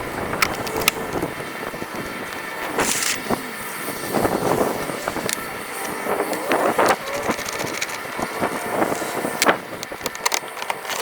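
Irregular clanks, knocks and rattles of metal parts being handled while a fuel tank and skid plate are fitted under a Jeep, over a steady background hiss.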